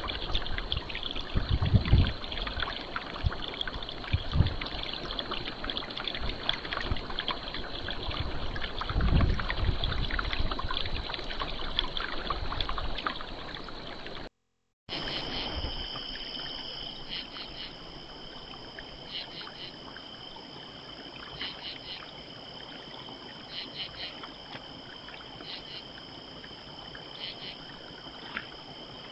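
Wind buffeting the microphone in gusts over a faint steady insect drone. After a brief dropout midway, a steady night chorus of crickets and other insects, two high-pitched even trills, with a few faint clicks.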